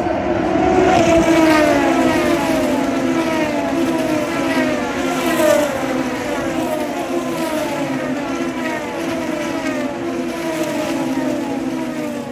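Super Formula single-seaters' turbocharged four-cylinder engines passing one after another on the main straight. Each car's pitch falls as it goes by, over a steady engine drone.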